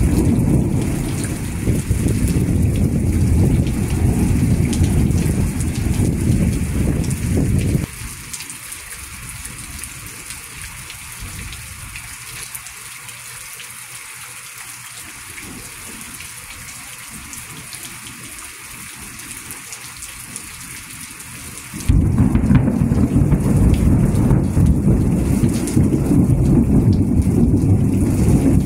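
Steady rain falling in a thunderstorm, under a heavy low rumble. The rumble cuts off suddenly about eight seconds in, leaving only the hiss of the rain, and returns just as suddenly near the end.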